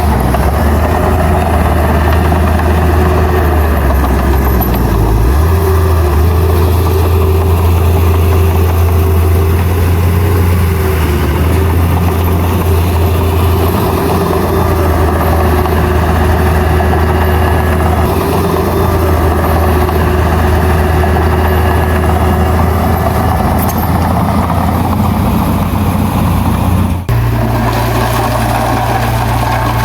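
Heavy diesel engine of earthmoving machinery running steadily with a low drone. The sound changes abruptly near the end.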